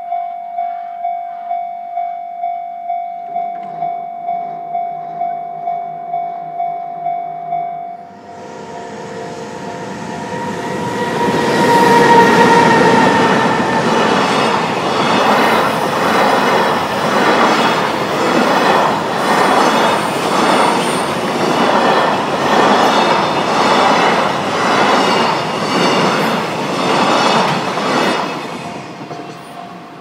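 A Japanese level-crossing warning bell rings in a steady, rapid beat of about two strikes a second. About eight seconds in, a JR Freight container train takes over the sound as it passes over the crossing, its wheels clattering over the rail joints in a steady rhythm that is loudest early on and fades near the end, where the bell is faintly heard again.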